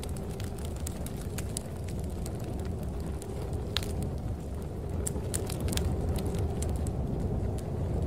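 Ambient snowstorm and fireplace sound: a steady low rumble of storm wind with many scattered sharp crackles and pops from a burning fire.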